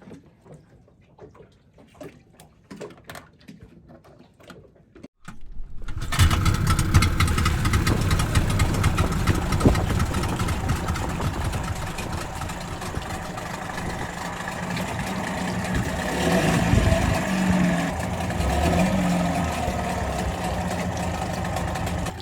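Brand-new outboard motor starting about five seconds in, after a few faint knocks, then running steadily at low speed, the start of its break-in run.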